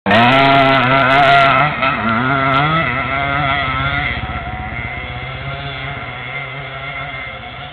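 Enduro dirt bike engine revving hard as the bike passes close by, its pitch rising and falling with the throttle. It then pulls away uphill and fades steadily into the distance.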